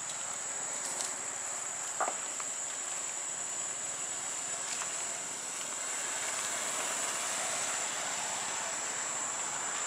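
Outdoor ambience: a steady hiss under a continuous high-pitched insect drone, with a few faint clicks.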